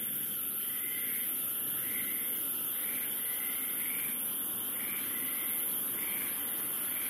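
Outdoor night ambience: a steady high-pitched hiss with a short chirp-like call repeating about once a second.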